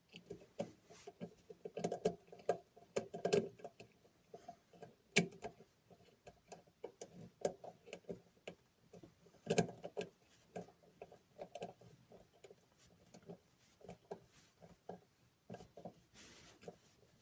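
Irregular small clicks and taps of metal parts as a bolt-headed screw is fitted into a washing machine's replacement motor mounting, with a few sharper knocks among them.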